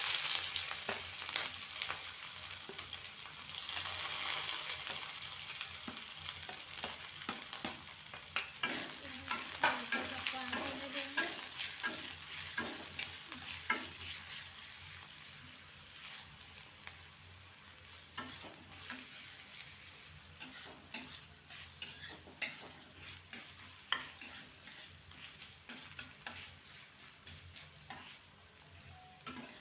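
Chopped onion hitting hot oil in a pan and frying, sizzling loudly at first and then more softly, while it is stirred with a spatula that taps and scrapes against the pan, the taps clearer in the second half.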